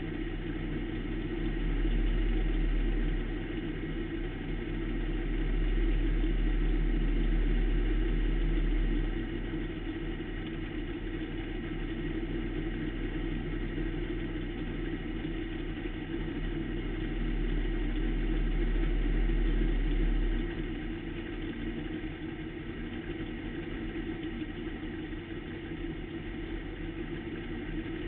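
Pro stock race car engine heard from inside the car, running steadily. Its deep rumble swells louder three times: briefly about two seconds in, for several seconds from about five seconds, and again from about seventeen to twenty seconds.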